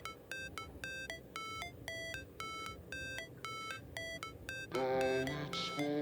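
Background music: a light melody of short plucked notes, about two to three a second, becoming fuller near the end.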